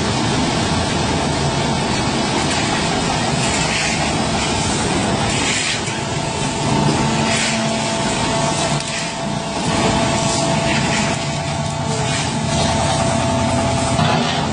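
Concrete mixer pump running: a steady engine hum with a held whine above it, and a hissing surge that repeats about every two seconds.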